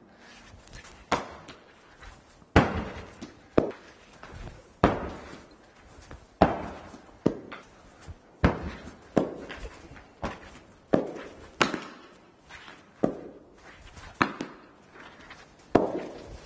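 Tennis balls thudding onto an indoor artificial-turf cricket pitch and off a cricket bat in back-defensive shots: a string of sharp knocks, about one a second, each with an echo from the hall.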